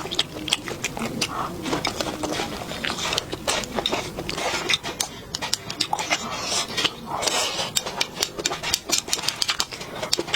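A person chewing and eating close to the microphone: many quick, irregular wet mouth clicks and smacks.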